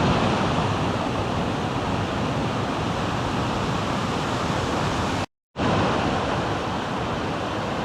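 Rushing water: a steady, loud, even rush of a fast-flowing creek or cascade, broken by an abrupt cut about five seconds in, after which the same rush resumes.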